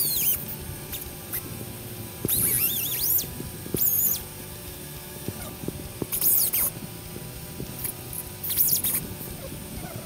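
Handheld air-powered cut-off tool with a thin abrasive disc cutting steel flat bar in short bursts, about five times; a high whine that rises and falls as it spins up and slows, with a grinding hiss while the disc bites.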